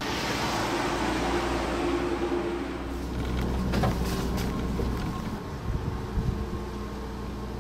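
Pickup truck driving past close by on a dirt track and pulling away: engine running, with tyre and road noise that comes in suddenly at the start.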